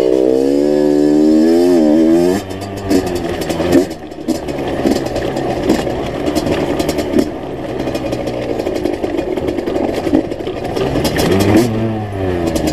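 Enduro dirt bike engine revving up and down over the first couple of seconds, then running lower and steadier, and revving again near the end. Sharp knocks and clatter from the bike riding down over loose rock come through the engine note, with a loud knock about four seconds in.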